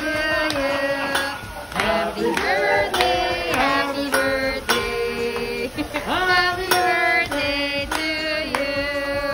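Music with singing: long held notes that glide and waver in pitch.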